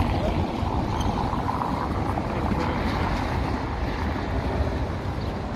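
Steady low outdoor rumble, with no distinct events.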